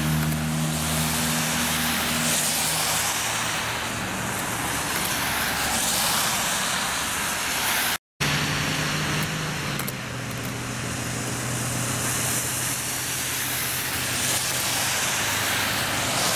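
Road traffic on a wet, slushy street: tyres hissing through the wet over a low engine hum, swelling several times as cars go by.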